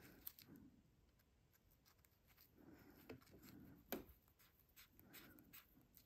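Faint handling sounds: light scratching and a few small clicks as a metal split key ring is pried open and worked onto the tab of a clear vinyl keychain, the sharpest click about four seconds in.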